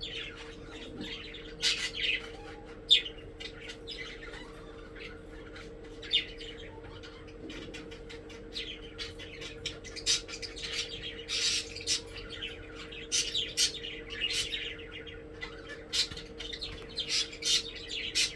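Pet budgerigars chirping and squawking in many quick, sharp calls, busier in the second half, over a faint steady hum.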